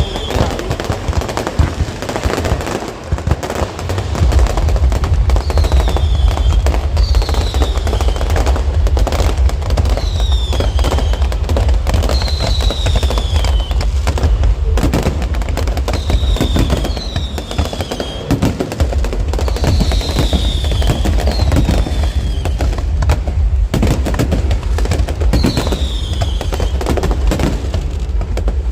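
Fireworks display: a dense run of bangs and crackling with heavy booming that grows louder and thicker about four seconds in. Short falling whistles recur every second or two throughout.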